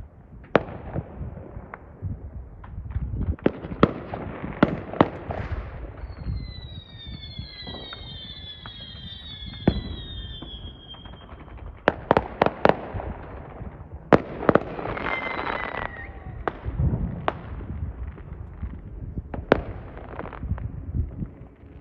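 Many fireworks going off across the city: scattered sharp bangs and cracks, some in quick clusters. Around the middle a long falling whistle sounds for several seconds.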